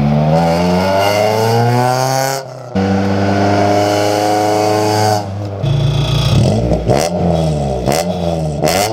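Honda Civic Si with a swapped B20B four-cylinder and a loud old exhaust, the engine note rising as the car accelerates past. After a short break a steadier pass follows, then from about halfway in the engine is revved up and down several times in quick blips. The exhaust is loud enough to draw a police stop, and the owner finds it annoying.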